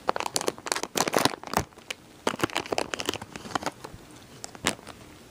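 Foil toy packaging crinkling and rustling as it is pulled open by hand: irregular crackles, busiest in the first three seconds, then only a few scattered ones.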